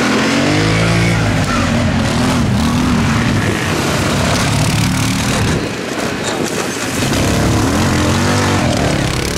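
Several ATV engines revving under load as the quads climb through a muddy ditch, the pitch rising and falling with the throttle; the sound dips briefly past the middle.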